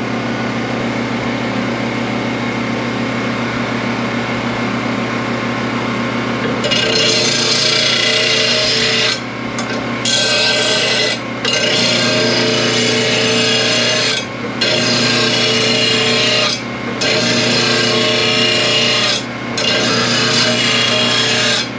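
Mower blade grinder's wheel spinning with a steady motor hum. From about six and a half seconds in, a lawn mower blade held in the jig is ground against the wheel in repeated passes, a loud harsh grinding with brief breaks every two to three seconds.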